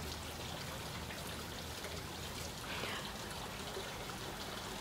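Faint, steady outdoor background hiss with no distinct events, a faint short call about three seconds in.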